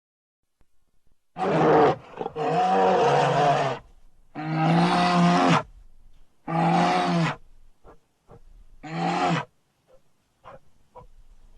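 Bear roaring: five loud, pitched roars of about a second each with short pauses between them, then a few faint short sounds near the end.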